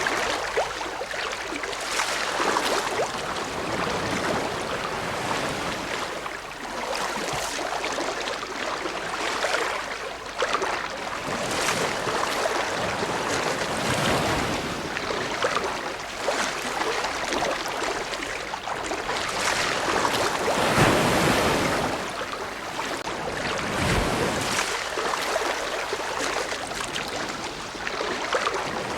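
Ocean surf: waves breaking and washing in, a steady rushing hiss that swells and eases every few seconds, with one bigger swell a little past two-thirds of the way in.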